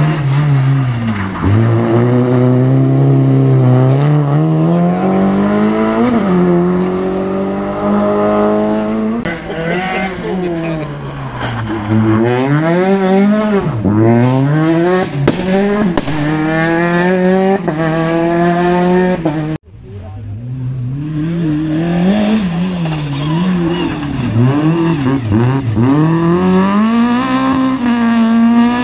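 Rally car engines revving hard through a tight hairpin, one car after another. The engine note repeatedly climbs, drops and climbs again as the cars brake, change gear and accelerate away.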